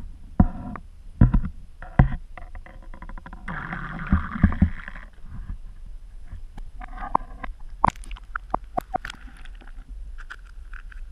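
Muffled sloshing and gurgling of water around an action camera submerged under pond ice. Several heavy knocks come in the first few seconds and a rushing splash a little later, then sharp clicks as the camera comes up through the hole in the broken ice.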